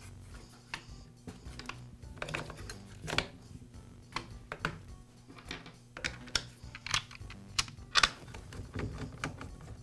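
Irregular clicks and taps of plastic and metal as the recoil starter housing is seated on a Poulan P3314 chainsaw and screwed down with a screwdriver. The loudest click comes about eight seconds in.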